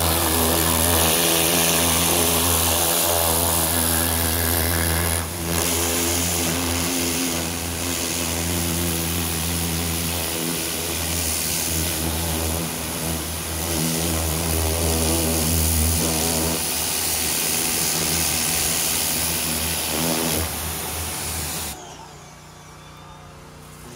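Greenworks 2000 psi electric pressure washer running: a steady motor hum under the loud hiss of the water jet hitting the boat. The washer cuts off about two seconds before the end.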